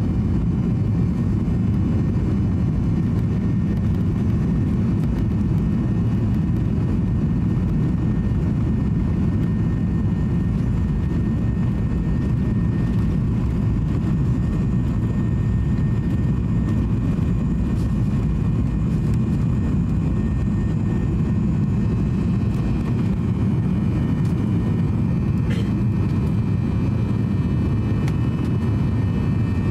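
Boeing 737-800's CFM56-7B engines at takeoff thrust heard from inside the cabin during the takeoff roll: a steady deep noise with faint high whining tones over it, and a single click late on.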